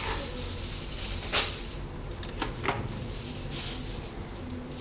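Kitchen handling noises: rustling with a sharp tap about a second and a half in and a lighter one a little later.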